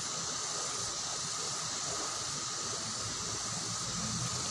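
Fast-flowing river current rushing, a steady, even hiss.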